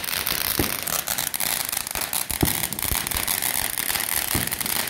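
Fireworks crackling and hissing steadily, from sparklers and a ground fountain firework spraying sparks, with a few dull low thumps about two seconds apart.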